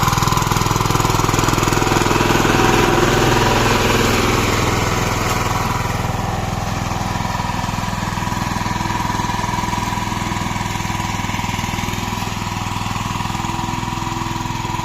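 Single-cylinder diesel engine of a power tiller running steadily while ploughing, slightly louder in the first few seconds and then settling a little lower.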